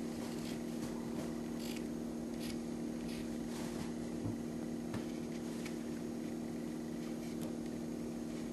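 A steady low hum, with faint, short scratching strokes of a pencil drawing on a small paper card.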